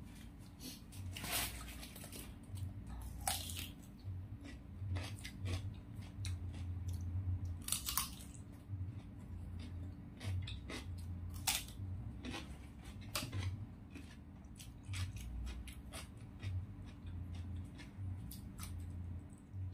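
Chewing with many sharp crunches, scattered irregularly, as raw vegetables and spicy chicken feet are bitten and eaten.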